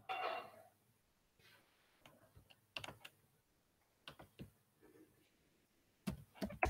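Computer keyboard keystrokes and mouse clicks, sparse and irregular, with a cluster of louder clicks near the end, while a description is typed into an accounting program. A brief louder sound, like a short murmur of voice, comes at the very start.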